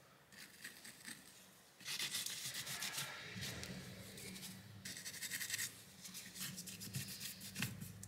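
Toothbrush bristles scrubbing old thermal paste from around a graphics card's GPU die in quick scratchy strokes, in two spells: about two to three seconds in, and again around five seconds in. A low steady hum comes in about three seconds in.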